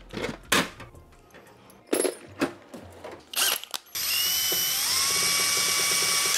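A few clicks and knocks, then about four seconds in an electric drill starts up and runs steadily, its whine rising in pitch as it spins up and then holding level: drilling a hole for the tyre valve through the e-scooter hub motor's outer cover.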